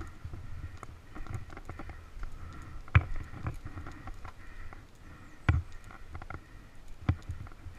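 Dirt bike rolling slowly down a wooded single-track trail at low throttle, its engine a low, faint running note. Three sharp knocks, about three seconds in, midway and near the end, come as the bike jolts over roots and bumps.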